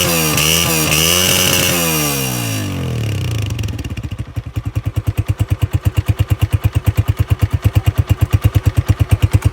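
Honda CG 125's single-cylinder four-stroke engine revved in a few quick throttle blips, then dropping back about three seconds in to a steady idle with an even, distinct beat of about seven pulses a second.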